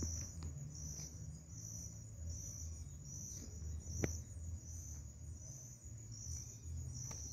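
An insect chirping steadily, a high-pitched chirp repeating about every 0.7 seconds over a constant high trill. Beneath it runs a low rumble, with one sharp click about four seconds in.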